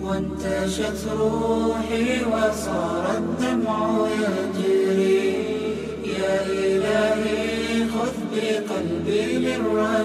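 Background music: an Arabic devotional nasheed sung a cappella, the singing held over a steady low hummed drone.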